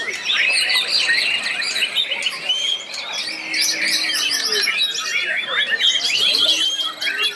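White-rumped shamas singing, several at once: a dense, unbroken run of overlapping rapid whistles and chirps.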